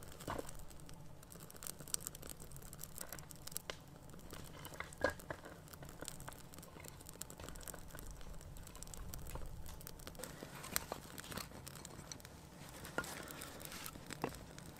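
Birch bark and wood-shaving tinder burning as a fire is lit, crackling with scattered small pops and snaps, one sharper snap about five seconds in.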